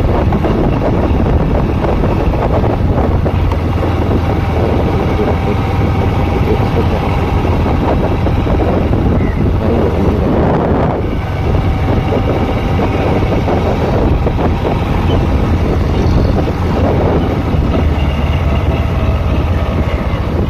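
Wind buffeting the microphone on a moving Honda SP125 motorcycle, a steady low rumble with the bike's engine and road noise beneath it.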